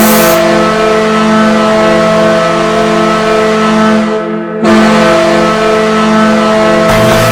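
New Jersey Devils goal horn blaring: a loud, deep, steady multi-tone horn blast over a hiss of noise. It cuts out briefly about four seconds in and then sounds again.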